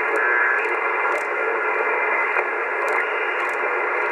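AOR AR-8600 communications receiver in lower-sideband mode being tuned up through about 3.8 MHz, giving steady shortwave band noise and static through its narrow audio filter. A brief whistle sounds about half a second in.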